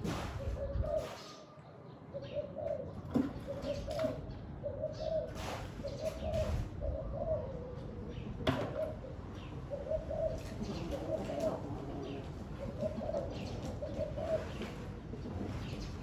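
Spotted dove cooing over and over, short phrases following each other about every second with a brief pause near the middle. Wind rumbles on the microphone underneath.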